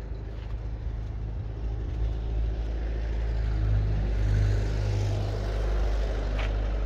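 A motor vehicle's engine rumbling low, growing louder to a peak about four seconds in and then easing off, with a short click near the end.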